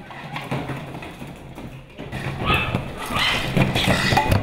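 Puppies knocking and pawing empty plastic party cups on a paper-covered tabletop: a run of light taps and soft thumps, with voices getting louder in the second half.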